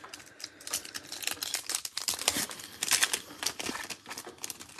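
Foil wrapper of an Upper Deck hockey card pack being torn open and crinkled by hand: a run of sharp crackles, busiest around the middle.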